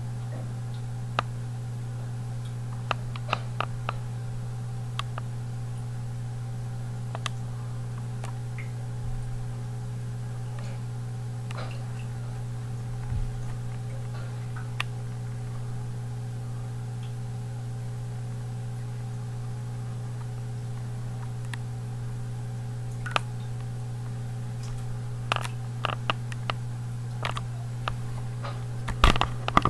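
Steady low hum of running reef-aquarium equipment such as the sump's return pump, with scattered sharp clicks and taps that come thicker near the end.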